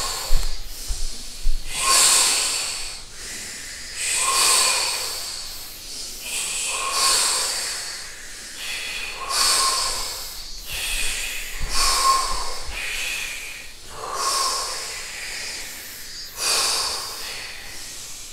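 Deep, forceful rhythmic breathing, one loud breath about every two and a half seconds, about seven in all: the fast over-breathing round of a breath-hold exercise, done before holding the breath.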